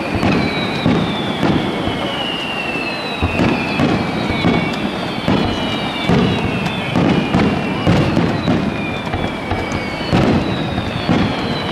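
Starmine fireworks barrage: shells launching and bursting in quick succession with repeated bangs, over high whistles that fall in pitch.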